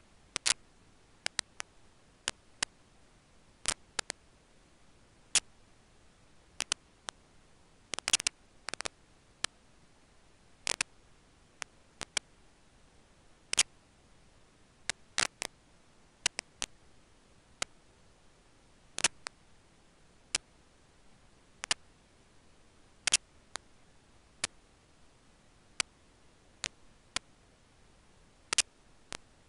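Sharp, separate clicks at an uneven pace of roughly one or two a second over a faint steady hiss, with a short cluster of them about eight seconds in.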